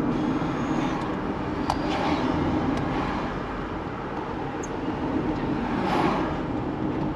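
Steady engine and road noise of a car driving, heard from inside the cabin, with a few faint clicks.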